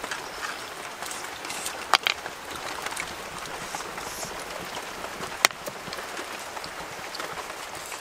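Sounds of eating cooked snails: small crackles over a steady hiss as snails are picked from the shell and chewed, with two sharp clicks, one about two seconds in and one about five and a half seconds in.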